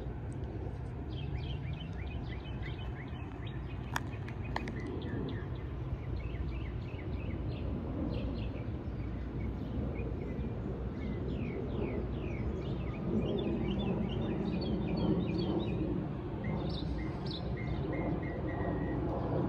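Songbirds chirping and trilling in short repeated phrases over a steady low rumble of outdoor background noise, with one sharp click about four seconds in.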